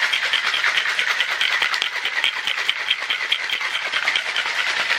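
Cocktail shaker shaken hard to mix a margarita, ice rattling inside it in a rapid, even rhythm.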